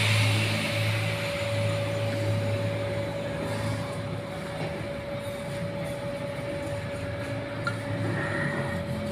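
Steady mechanical hum: a low pulsing drone with a constant mid-pitched tone held throughout. A high hiss dies away in the first second.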